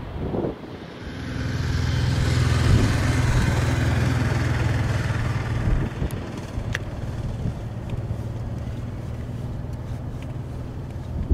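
Jet airliner engines: a rushing roar with a low hum that swells about a second in, is loudest for a few seconds, then eases off to a steadier, quieter level.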